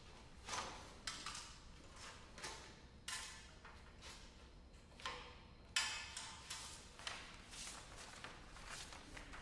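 Solo cello in a quiet passage: about a dozen sparse, irregular short percussive notes, one or two a second, each ringing briefly.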